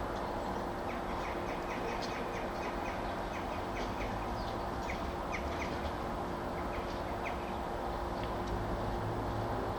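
Small birds chirping in many short, quick calls over a steady low rumble and hum.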